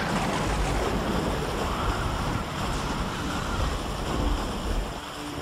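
Storm wind sound effect: a steady rushing of wind that swells a little in the middle.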